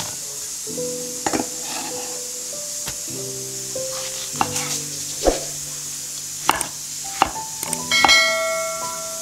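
Kitchen knife slicing a tomato on a wooden chopping board: several sharp knocks of the blade reaching the board, the loudest near the end. Soft piano background music plays throughout.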